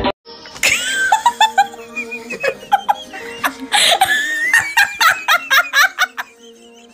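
A young child's high voice in short, broken bursts, over quiet background music.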